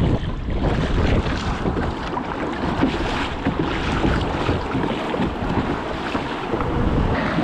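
Wind buffeting the microphone over water splashing and sloshing against a sea kayak's bow as it is paddled through choppy sea.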